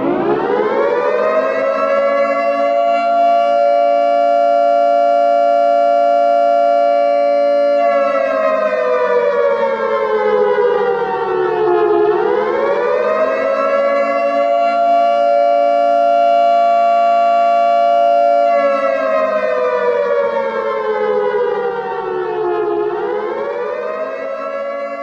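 Civil-defence-style siren wailing. It winds up from nothing to a steady held chord of tones, then slowly falls in pitch and winds back up, twice, starting a third climb near the end.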